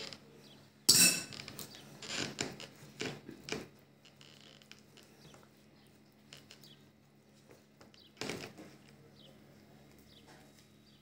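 A metal spoon clinks sharply about a second in, followed by a few softer clicks and taps of the spoon. After that come only faint handling sounds as the stuffed vine leaf is rolled by hand, with one more short knock a little after eight seconds.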